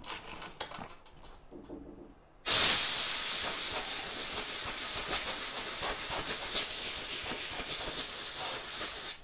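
Loud, steady hiss of blowing air that starts suddenly about two and a half seconds in and cuts off near the end, after a few light handling clicks.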